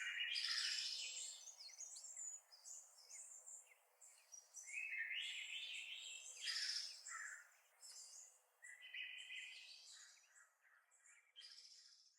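Alarm tone made of recorded birdsong: several phrases of high chirps and warbles, with none of the lower sounds present. It cuts off abruptly at the end.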